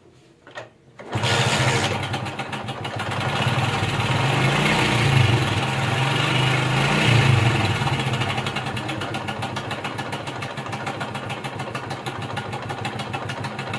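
Honda CD 70's small single-cylinder four-stroke engine starting about a second in, revving up a little twice, then settling to idle. A fast, even clatter runs through it: the timing chain rattle of a slack cam chain, which the mechanic traces to a leaking cam chain tensioner.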